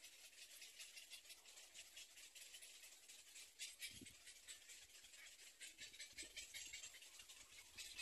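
Near silence: a faint, steady high hiss with fine crackle, and a soft low thump about four seconds in and another near six seconds.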